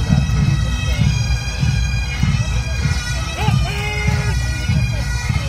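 Massed pipe band playing a march: bagpipes with steady drones under the chanter tune, and drums beating about twice a second.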